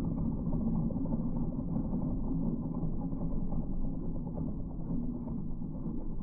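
Bobcat E10 diesel mini excavator running a Geko stump grinder attachment, heard slowed down: a deep, steady machine rumble with a muffled, dull top end.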